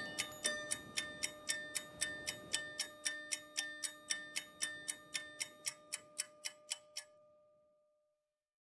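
Clock-like ticking in a music track, about three ticks a second over a held note. It fades out about seven seconds in.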